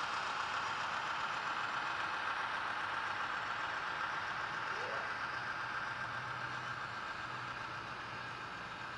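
Sound-decoder diesel engine sound of an HO-scale BNSF ES44AC model locomotive, played through its small onboard speaker. The engine sound runs steadily and fades slowly as the locomotive pulls past and away.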